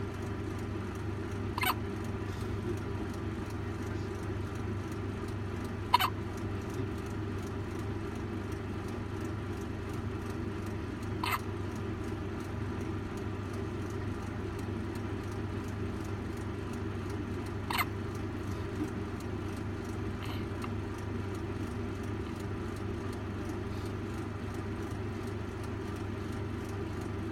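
Premature baby hiccuping: four short, sharp hics several seconds apart and a fainter one about twenty seconds in, over a steady low hum.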